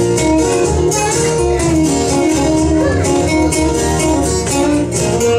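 Live unplugged band: acoustic guitars strumming in a steady rhythm, with a held melody line over them.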